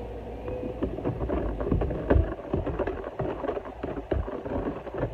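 Irregular knocks and clatter of utensils and containers being handled in a kitchen, over a low background rumble.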